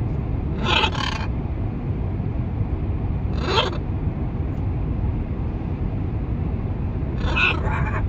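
Steady road and engine rumble inside a moving car's cabin, with three short calls from pet macaws: about a second in, around the middle, and near the end.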